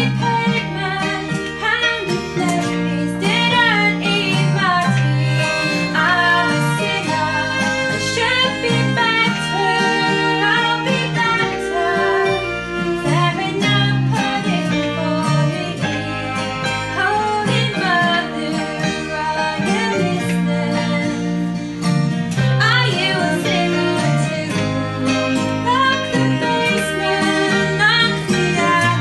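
Small acoustic band playing a song live, with bass, piano and viola over plucked strings.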